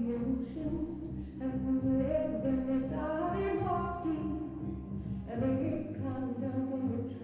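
Recorded song playing as dance accompaniment: a singer's voice over instrumental backing, the melody rising about three seconds in.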